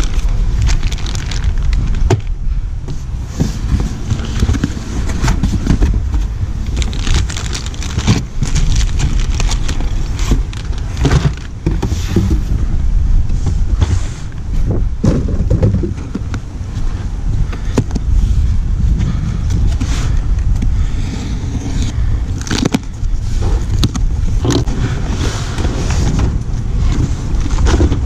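Cardboard boxes being cut open with a knife and handled: repeated scraping, crackling and rustling of cardboard over a steady low rumble.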